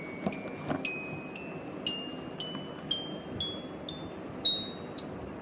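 Bell-like chime notes in background music, struck one at a time about twice a second, each a little higher than the last in a slow rising run. A couple of soft knocks from the cardboard box being handled come in the first second.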